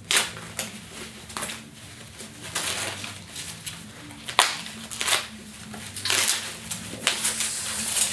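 White plastic packing wrap rustling and crinkling as a wrapped item is handled and opened, with irregular crackles and a couple of sharper clicks.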